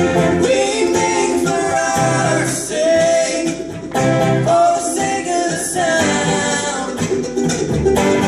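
String band playing live, with singing over banjo, acoustic guitars, fiddle and upright bass.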